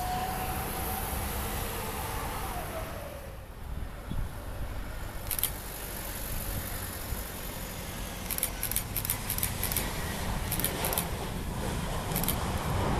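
Airbus A320 jet engines heard from beside the runway during landings, over a steady low rumble. In the first few seconds an engine whine falls in pitch and fades. Toward the end a broad rushing roar builds as the next A320 rolls down the runway, with cars passing on the road close by.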